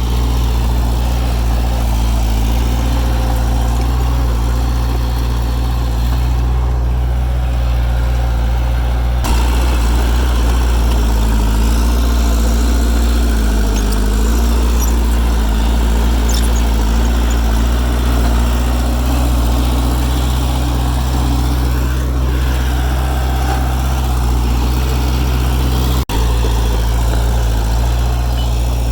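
Heavy diesel engine of earthmoving machinery running steadily, with a slight dip in pitch about halfway through.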